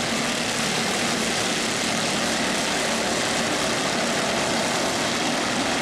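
A field of Mini Cup race cars running at speed, their engines making a steady, continuous drone.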